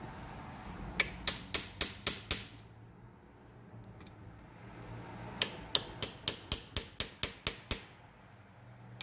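Light hammer taps on a steel punch, peening the tabs of a 1981 VW Rabbit blower motor's metal housing closed so it holds together. The taps are sharp and ringing, about four a second: a run of about six, then after a pause a run of about ten.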